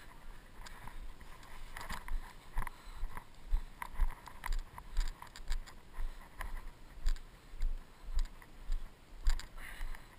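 Footsteps walking on a dirt and grass path, about two steps a second, with small clicks and rattles from the jostled camera.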